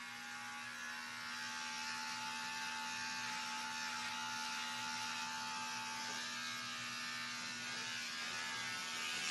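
Electric hair clippers running with a steady buzz as they are worked over the scalp, taking the short stubble down close to the skin.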